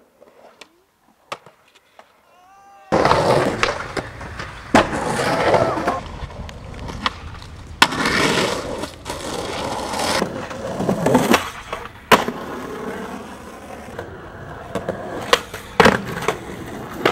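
Skateboards on concrete: fairly quiet for the first few seconds with a few clicks, then the loud rolling of hard wheels broken by sharp cracks of tail pops and board landings.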